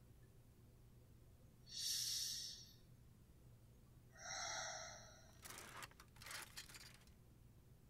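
A woman's tense breathing: two heavy breaths, about two seconds apart. Then, about five and a half seconds in, a brief rustling clatter of clothes and hangers as a long club is jabbed into a closet.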